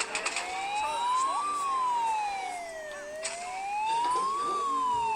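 Emergency-vehicle siren wailing, its pitch sliding steadily up and down about once every three seconds, with a few short clicks near the start.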